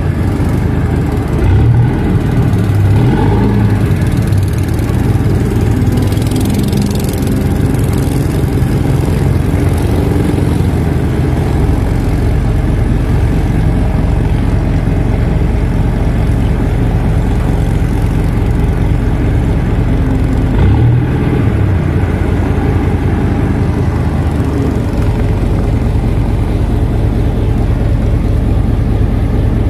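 Tugboat's diesel engine running steadily while it tows a barge on a taut towline, with the low drone growing deeper about twelve seconds in.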